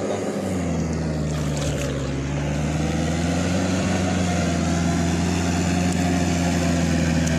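Compact farm tractor's diesel engine running steadily under load while tilling a flooded rice paddy, a low drone whose pitch sags slightly and recovers about a second or two in.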